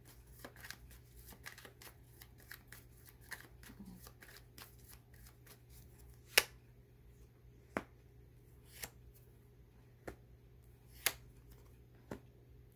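A deck of tarot cards being shuffled by hand: a rapid run of soft card clicks for about six seconds, then about six separate sharper snaps roughly a second apart as cards are pulled and laid down, the loudest about halfway through.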